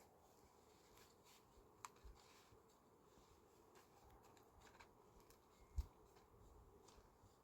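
Near silence with faint scattered ticks and clicks, and one low thump about six seconds in.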